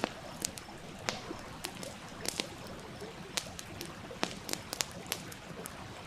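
Wood campfire crackling, with irregular sharp pops about two a second, over the steady rush of a stream.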